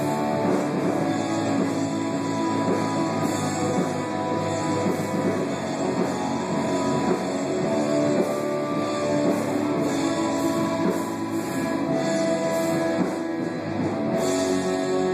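Rock music playing, with guitar.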